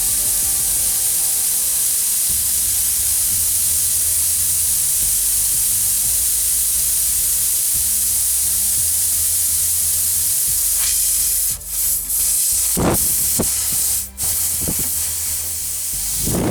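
Air hissing steadily out of a punctured car tire where a small screw has been pulled, broken by a few short gaps and knocks near the end.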